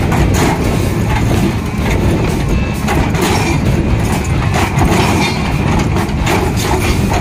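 Hyundai crawler excavator's diesel engine running under load, with crushed stone scraping and clattering as the bucket drags through the pile.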